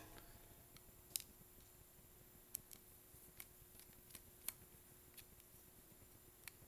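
Near silence broken by a handful of faint, irregular clicks: a small screwdriver turning and seating the four tiny screws on a diaphragm carburetor.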